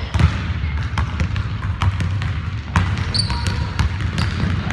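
Basketball dribbled on a hardwood gym floor: repeated irregular thuds, with a couple of short sneaker squeaks about three seconds in, echoing in a large gym.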